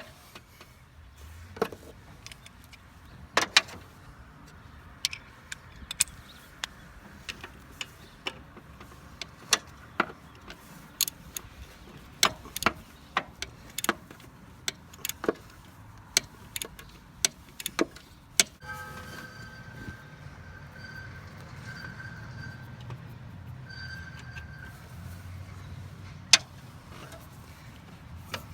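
Irregular metal clinks and knocks of hand tools, a wrench and socket, working on a Jeep Cherokee XJ motor mount and its bolts. A low steady hum with a faint tone joins about two-thirds of the way through.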